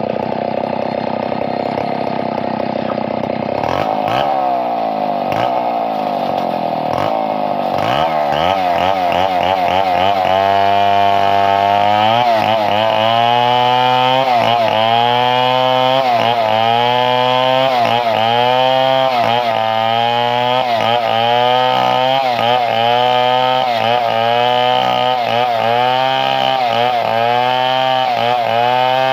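Two-stroke chainsaw running loudly. It is revved up and down a few times, then from about ten seconds in it is held at high revs with its pitch dipping and recovering about once a second, as it does when the chain is pushed into wood while cutting.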